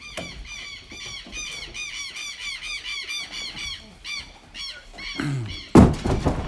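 Pigs squealing for feed: a rapid string of short, high squeals rising and falling, about four or five a second, then thinning out. Near the end a loud thump as a large squash is thrown into the pen.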